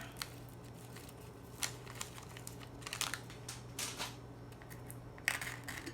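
Soft, scattered rustling and a few light clicks from hands handling and pressing together a stacked veggie burger, over a faint steady hum.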